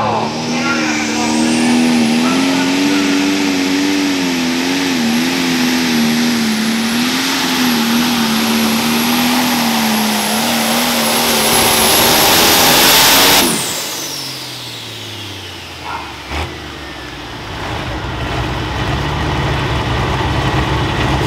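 Turbocharged diesel pulling tractor running at full throttle: the turbo's whistle rises over the first two seconds and holds high above a wavering engine note. About thirteen seconds in, the throttle is cut suddenly and the engine and turbo wind down, falling in pitch. A single knock follows a few seconds later, then a lower steady rumble.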